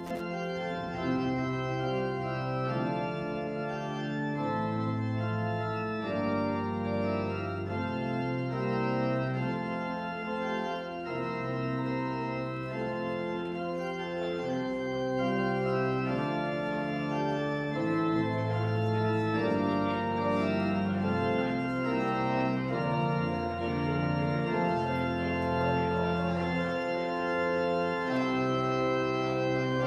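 Church organ playing slow, sustained chords, with a deep bass note held under each change of harmony.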